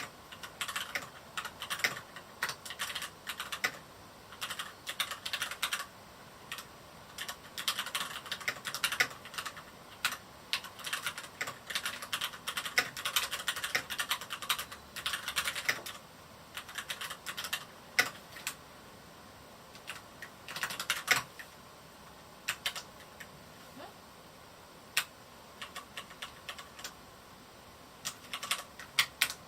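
Typing on a Varmilo Miya68 mechanical keyboard with Cherry MX Red linear switches: quick runs of keystroke clacks broken by several pauses of a second or two.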